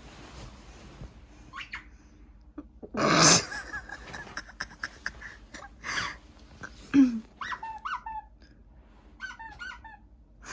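A puppy playing with a toy: a loud breathy burst about three seconds in, then short high squeaks in quick little clusters later on.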